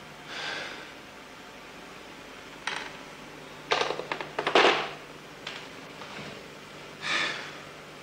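A man exhales heavily twice, once near the start and once near the end. In between, a few sharp clicks and a clattering run of rapid clicks for about a second, the loudest sound.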